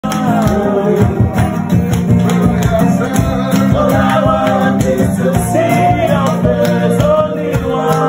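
Informal live gospel music: singing over a steadily strummed guitar.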